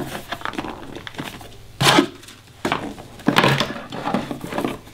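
Cardboard packaging being handled as an insert is lifted out of a box: a series of scraping, knocking and rustling bumps, the loudest about two seconds in and more from about three seconds on.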